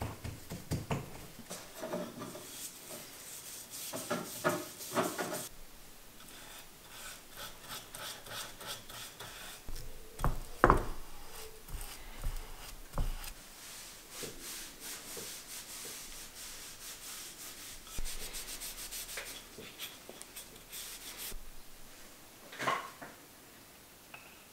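A paintbrush scrubbing a finish onto a small oak block in quick, repeated strokes, with the bristles also working in a glass jar of finish. A sharp knock about ten seconds in is the loudest sound.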